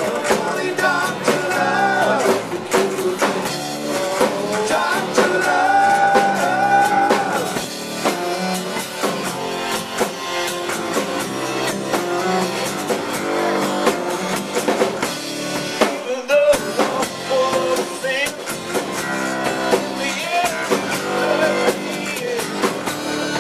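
A rock band playing live in a stripped-down acoustic set: electric bass, acoustic guitar and drums under a man singing lead. There is a brief break in the low end about sixteen seconds in.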